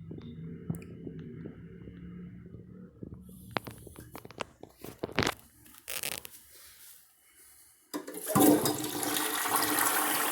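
A few clicks and knocks, then a toilet is flushed about eight seconds in: a sudden loud rush of water that keeps going. The toilet is clogged.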